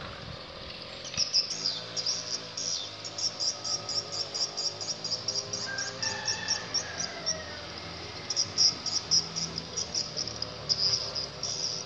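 Insects chirping in quick, evenly repeated high pulses, about four or five a second, with a short break a little past the middle. A bird calls briefly about halfway through.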